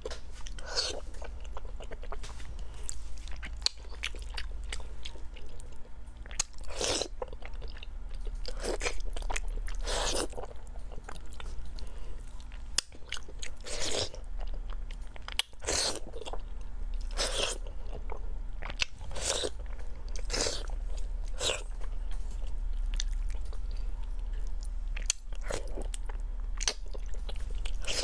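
A person chewing and biting into chili-covered pork, close to a collar microphone, with irregular louder bites and mouth sounds every second or two.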